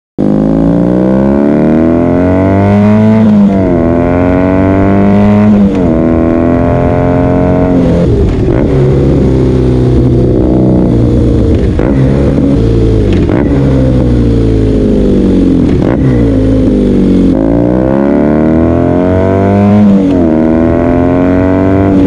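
BMW R nineT Urban G/S's air/oil-cooled boxer twin through a Unit Garage slip-on exhaust, heard right at the silencer while riding. It pulls up through the gears, pitch rising and then dropping at each upshift, twice in the first six seconds, runs at a steadier cruise through the middle, and accelerates through another shift near the end.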